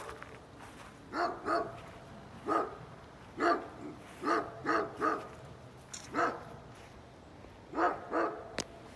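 A dog barking repeatedly, about ten short barks coming singly, in pairs and once in a quick run of three. There is a single sharp click near the end.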